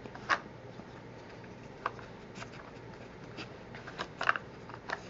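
Plastic pieces of a dog treat-puzzle board clicking and clacking as a dog noses and slides the lids and bone-shaped sliders, in scattered single clicks with a quick run of them about four seconds in.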